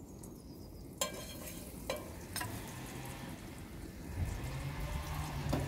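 Oil spooned into a hot iron pan on a gas grill burner, starting to sizzle and fry about a second in and growing louder, with a few light clicks.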